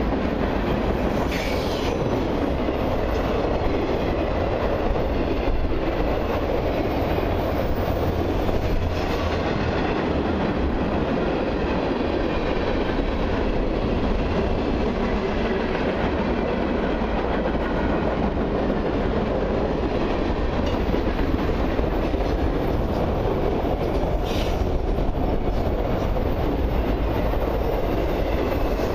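Freight cars of a long mixed train, autoracks, tank cars and covered hoppers, rolling past close by: a steady rumble and rattle of steel wheels on the rails.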